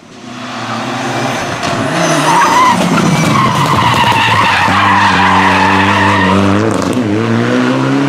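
Mitsubishi Lancer Evolution rally car with its turbocharged four-cylinder engine, tyres squealing as it slides through a tarmac hairpin. The engine note climbs near the end as the car accelerates out of the corner.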